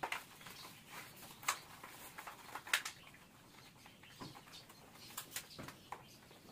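Soft, irregular clicks and rustles of a cycling helmet and face mask being put on and adjusted by gloved hands.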